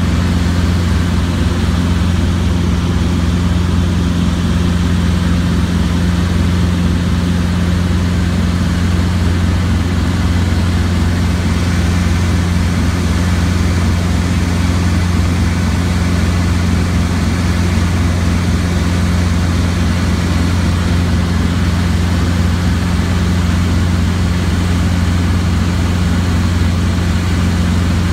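Robinson R22 helicopter in cruise, heard from inside the cabin: a loud, steady low drone from the engine and rotors that holds the same pitch throughout.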